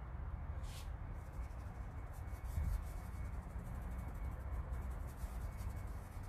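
Scratchy strokes of a drawing tool sketching lines on denim fabric, with one short scrape about a second in, over a steady low rumble.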